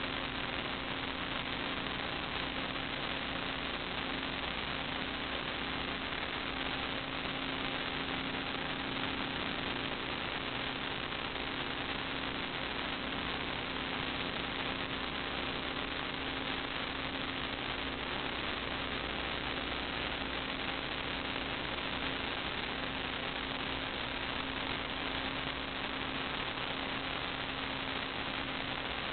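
Steady hiss with a constant electrical hum, unchanging throughout: the background noise of a sewer inspection camera's recording.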